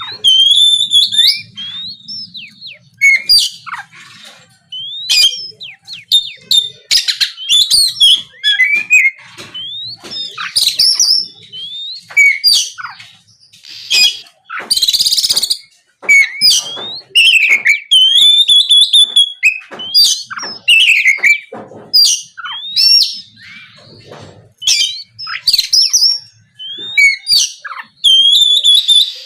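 Oriental magpie-robin (kacer) singing a long, varied song of loud whistled phrases: rising and falling slurs, quick note runs and short trills, broken by brief pauses.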